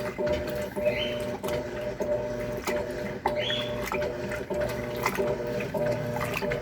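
Electrolux LTC10 top-loading washing machine running with a full load: a steady motor hum with repeated clicks and the occasional swish of water sloshing in the drum.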